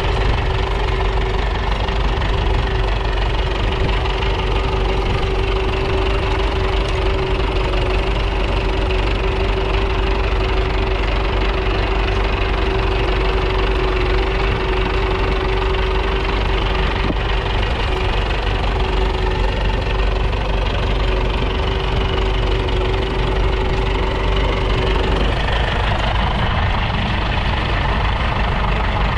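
1938 Fordson Model N's 4.4-litre four-cylinder TVO engine running steadily while the tractor pulls a two-furrow trailed plough. A steady whine runs alongside it and cuts out about four seconds before the end.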